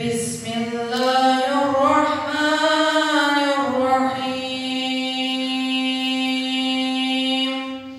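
A boy's voice reciting the Qur'an in melodic tajwid chant: one long unbroken phrase that rises and falls in pitch over its first half, then is held on a single note until it stops just before the end.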